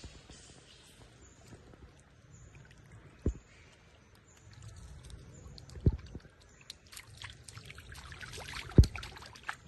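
Pool water splashing and sloshing as monkeys move and bathe in it. Three dull thumps, the last and loudest near the end, come over a patch of busier splashing late on.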